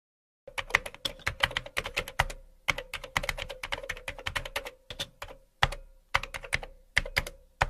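Computer keyboard typing sound effect: quick runs of key clicks with brief pauses, over a faint steady hum, starting about half a second in and cutting off abruptly near the end.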